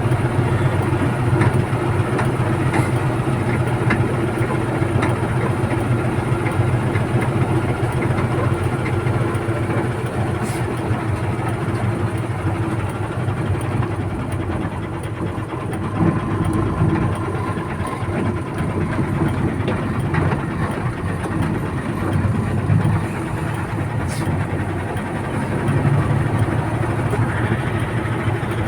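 Backhoe's diesel engine running steadily under work, swelling briefly a few times as the load changes.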